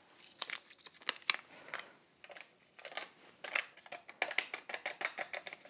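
Paper packet of baking powder rustling and being tapped as it is emptied into a mixing bowl: a string of light, irregular ticks and crinkles.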